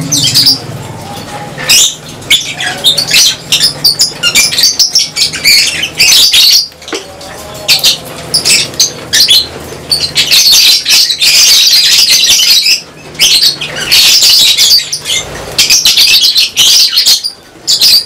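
A colony of lovebirds keeps up a constant shrill chatter of chirps and squawks, with wing flapping among the calls.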